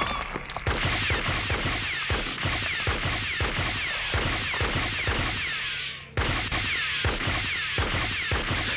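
Anime battle sound effects: a rapid string of blast and gunfire-like impacts laced with short falling zaps. They break off briefly about six seconds in, then resume.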